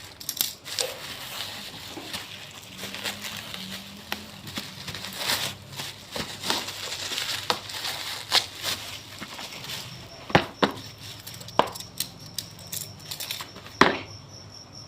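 Packaging of a wall clock being handled and opened: crinkling and rustling, with scattered sharp clicks and knocks, a few of them loud in the second half.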